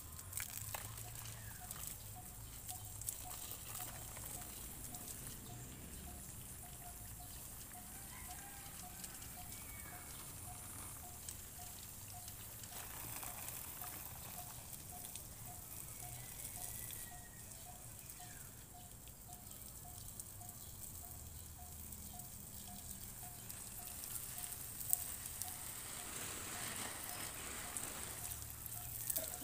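Water from a garden hose spraying and pattering onto plants and soil, a steady splashing hiss.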